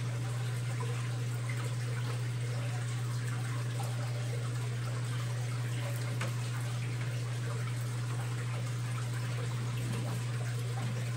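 AQQA electric aquarium gravel vacuum running: a steady low motor hum under a constant rush and trickle of water as it pumps tank water out through its hose.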